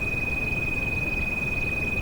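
A steady, high-pitched pure tone, a tinnitus-masking frequency, held without change over the even hiss of steady rain.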